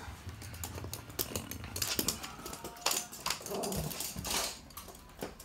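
Toy poodles scampering on hard flooring, their claws clicking and skittering in quick irregular ticks as they play.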